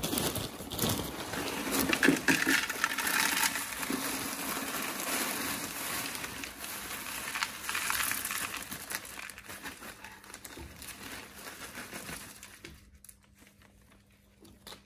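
Plastic bag of aquarium filter-media beads crinkling as it is handled and emptied, with small clicks of the beads pouring into a sieve. It fades to near quiet near the end.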